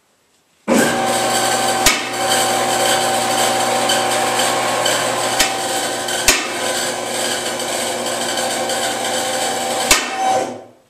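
Car lift's electric hydraulic pump running as it raises the car body off the engine, transmission and subframe, a steady machine hum with four sharp clicks along the way. It starts abruptly just under a second in and cuts off near the end.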